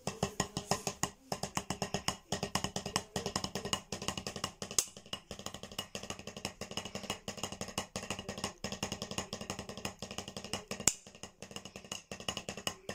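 Drumsticks playing fast strokes on a drum practice pad: a rudiment of three double strokes followed by a single stroke, played over and over in phrases with a few brief pauses.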